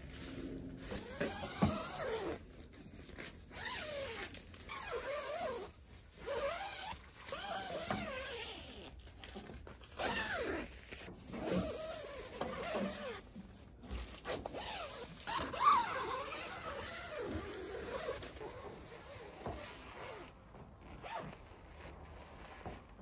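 Zips and nylon fabric of a Polaris D1 tent being worked by hand while it is set up: a string of irregular scratchy strokes with short pauses between them.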